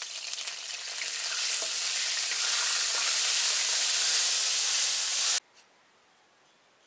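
Annatto (achuete) oil sizzling in a hot wok as it is stirred. The hiss builds over the first couple of seconds, holds steady, then cuts off suddenly about five seconds in.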